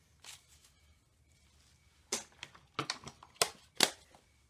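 Sharp plastic clicks and knocks as a digital caliper's hard plastic case is handled, shut and moved on a wooden bench: one faint click early, then a quick run of louder clicks in the second half.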